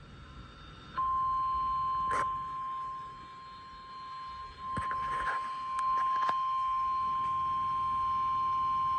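Emergency Alert System attention tone from a radio: a single steady tone starting about a second in and holding, the alarm signal that comes before a severe thunderstorm warning message. A few short knocks sound over it.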